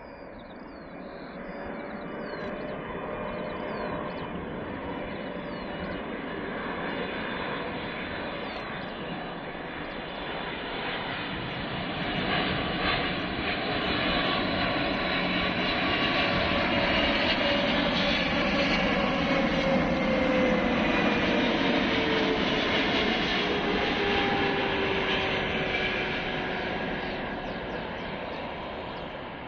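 A Boeing 777-300ER airliner's GE90 jet engines growing louder as the aircraft approaches, loudest about two thirds of the way through, with a whine that falls in pitch as it passes, then fading. Birds chirp faintly near the start.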